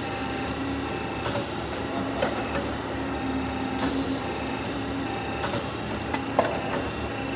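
Downspout elbow machine running, a steady mechanical hum with a tone that comes and goes. Short hisses come roughly every two and a half seconds, with a couple of sharp metallic clicks between them.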